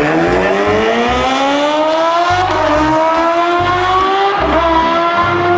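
Racing motorcycle engine sound effect accelerating, its pitch climbing steadily and dropping briefly twice as it shifts up.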